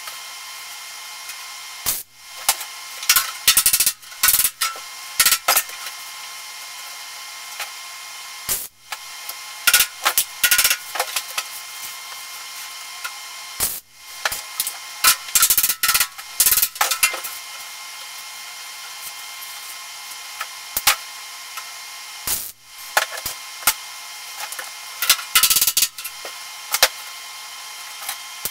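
Welder laying tack welds along the seam of a steel lower-fender patch panel: about a dozen short crackling bursts of arc, each a second or two at most, with a steady hum between them.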